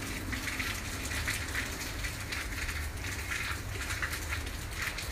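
Steady hiss of falling rain, with a low rumble of wind buffeting the microphone.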